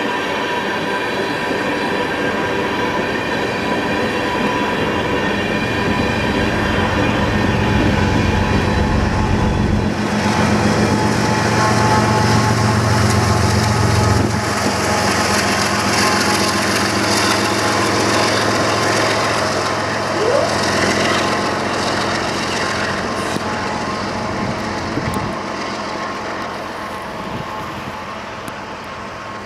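Diesel-hauled freight train passing close by: a heavy low engine rumble with steady tones for the first half, then the rushing, rattling noise of the freight cars rolling past, slowly fading near the end.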